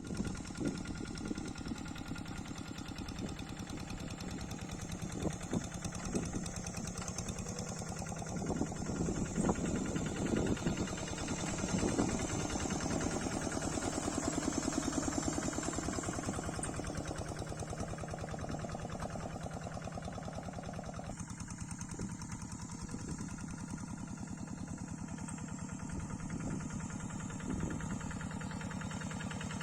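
Kubota single-cylinder diesel engine on a Quick hand tractor running steadily, with a rapid, even chugging. It gives a few louder irregular knocks about nine to twelve seconds in, and the sound turns duller about twenty-one seconds in.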